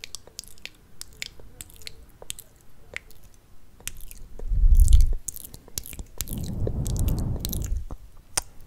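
Close-miked ASMR mouth sounds: a string of wet lip smacks and mouth clicks. Two louder low bursts stand out, a short one about halfway through and a longer, noisier one about two seconds later.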